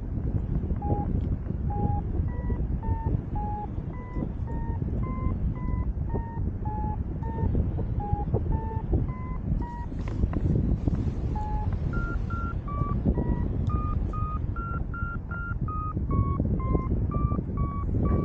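Paragliding variometer beeping about twice a second over steady wind noise on the microphone. These are its climb tones, signalling lift. The beeps move to a higher pitch in the second half, which means a faster climb.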